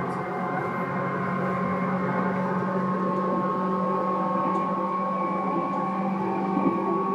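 Tobu 9000-series electric train heard from inside the car while running: a steady hum and whine of the traction motors and control gear, several tones together over rumbling running noise, the higher tones slowly edging up in pitch.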